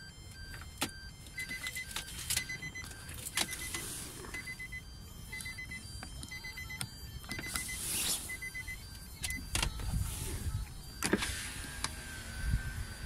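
Electronic device beeping: short high beeps repeating about twice a second, then one longer steady beep starting near the end. Sharp clicks from handling and a low wind rumble run underneath.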